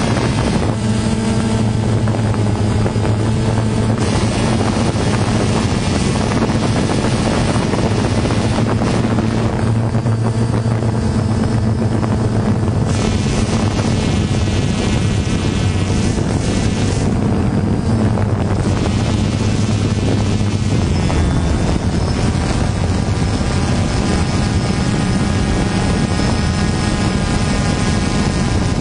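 Multirotor camera drone's propellers and motors running steadily, a loud, even, pitched hum over a rushing noise. The tone shifts slightly about two-thirds of the way through.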